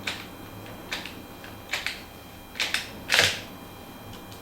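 Hand snips cutting into the plastic of a washing machine door handle a little at a time: about five sharp snaps, the loudest a little after three seconds in.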